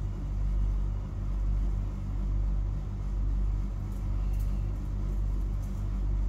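A steady low machine hum made of several pitched layers, swelling and fading about once a second, with a few faint light clicks around four to five seconds in.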